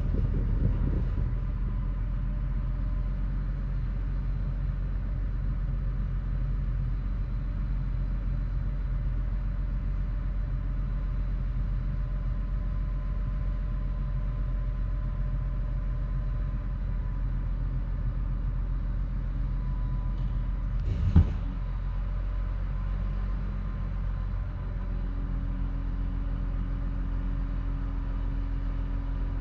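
Cat D6H crawler dozer's six-cylinder diesel engine running steadily with a low rumble. One sharp clank comes about two-thirds of the way in, and the engine note shifts a few seconds later.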